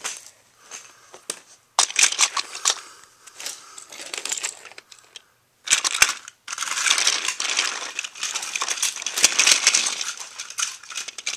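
Battery-powered TOMY toy trains running on plastic track: a dense, crackly clatter of wheels and gears. It cuts in and out abruptly a few times.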